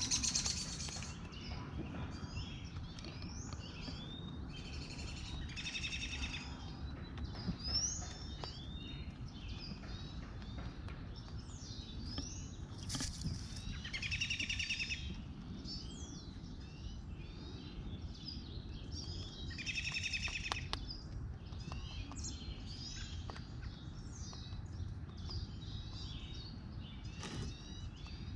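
Several wild songbirds singing and chirping at once, with a rapid buzzy trill that comes back every six to eight seconds, over a low steady background rumble.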